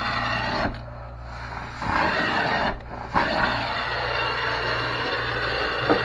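Carpet-cleaning vacuum motor running with a steady rushing sound over a low hum. The rush drops away twice, for about a second near the start and again briefly around three seconds in, with a couple of small knocks.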